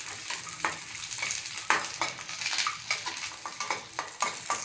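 Raisins and almonds frying in ghee in a kadai, sizzling, while a metal spatula stirs them and scrapes and clinks against the pan in irregular strokes.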